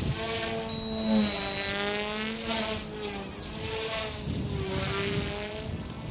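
Electric OMPHOBBY M2 mini 3D RC helicopter flying, its brushless direct-drive motor and rotor blades making a buzzing whine. The pitch rises and falls as it manoeuvres.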